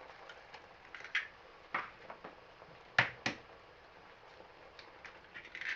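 A few short, sharp taps and knocks on cookware, with the loudest two close together about three seconds in.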